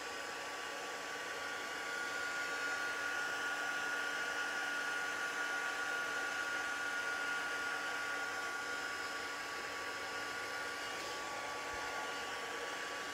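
Embossing heat tool blowing steadily with a high motor whine, melting embossing powder.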